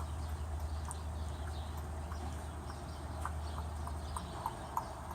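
Chickens in a coop: scattered short, soft calls and small taps, irregular, over a steady low hum.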